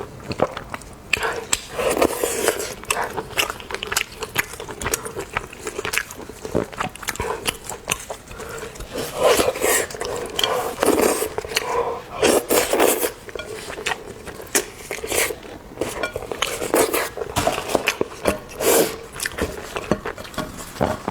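Close-miked eating of seafood: irregular wet biting, chewing and lip-smacking clicks, with crunchy bites scattered through.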